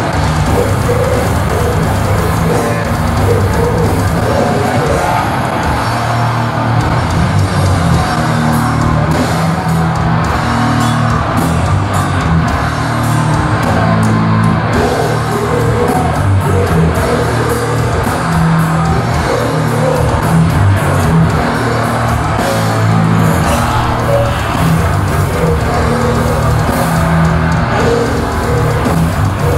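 Death metal band playing live in the Swedish style, with buzzsaw-toned distorted electric guitars, bass guitar and a pounding drum kit, and a vocalist growling into the microphone. Loud and unbroken.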